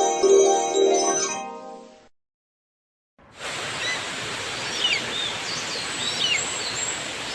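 A chime-like music melody fades out over the first two seconds, followed by about a second of dead silence. Then outdoor ambience comes in: a steady rushing background with birds calling in short, repeated, curving whistles.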